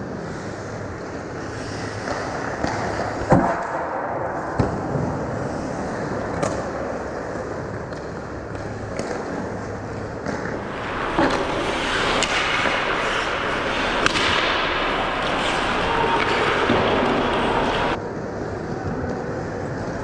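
Recreational ice hockey play: sharp clacks of sticks and puck, several seconds apart, over a steady rink hiss of skates on ice that grows louder and brighter for several seconds in the second half.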